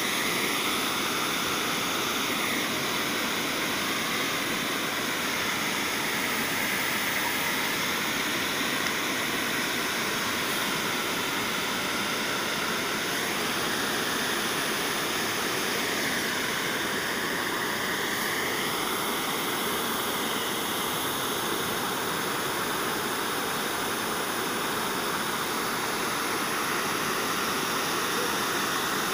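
Steady rush of river water churning through white-water rapids.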